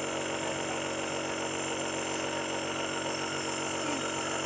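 Compressor nebulizer running with a steady, even hum, pumping air to turn the medicine into mist for inhalation.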